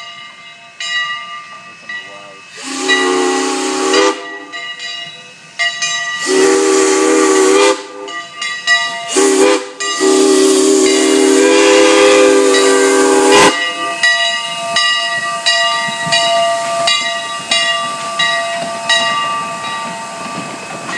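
A two-foot gauge steam locomotive, Monson Railroad No. 4, blowing a multi-note steam whistle with a hiss of steam. It gives two long blasts, a short one and a final long one, the grade-crossing signal. Afterwards the train rolls past with a regular clatter of knocks.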